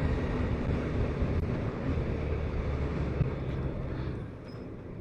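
BMW K1200RS inline-four engine running under way with wind rush. The sound gets quieter about four seconds in.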